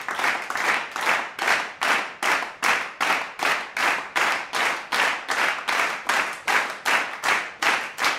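Rhythmic clapping in a steady, even beat of about two and a half claps a second.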